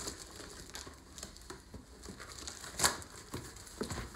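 A cardboard parcel being opened: rustling and crinkling of cardboard and packing tape as the box is cut and its flaps pulled apart, with a sharp snap about three seconds in.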